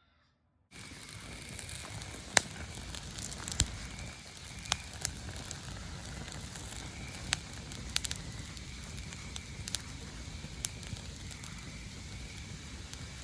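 Wood campfire burning: a steady hiss with sharp crackling pops at irregular intervals, a few of them loud, starting abruptly just under a second in.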